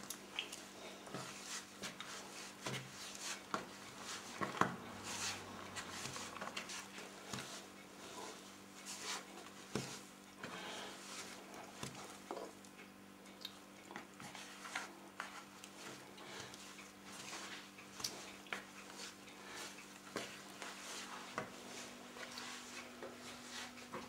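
Potica yeast dough being kneaded and beaten by hand in a plastic bowl: irregular soft slaps and knocks of dough and hand against the bowl, over a faint steady hum. The dough is being worked until it comes away cleanly from the hand and the bowl.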